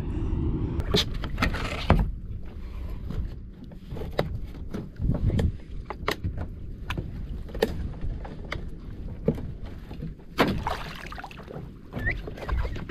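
Irregular knocks and clicks on a plastic sit-on-top kayak as a freshly landed longtail tuna is handled aboard and bled over the side, over a steady low rush of water and wind.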